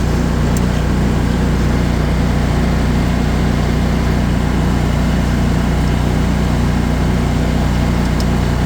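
Cub Cadet Tank L48 zero-turn mower's Kohler 694 cc engine running steadily at high throttle.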